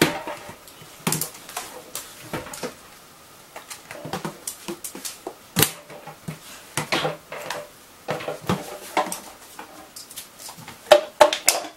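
Irregular clicks and knocks as a dog's claws tap on a tiled floor and it tugs at the door of a small fridge to fetch a drink, with a few louder knocks from the fridge door.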